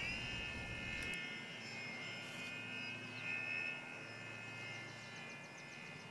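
Electric brushless outrunner motor and propeller of a foam RC warplane model in flight, making a steady high-pitched whine that slowly grows fainter.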